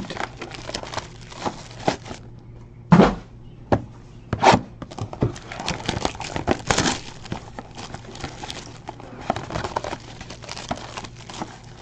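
Foil card packs crinkling and cardboard boxes rustling as they are handled and opened, with irregular small clicks and a couple of sharper knocks about three and four and a half seconds in.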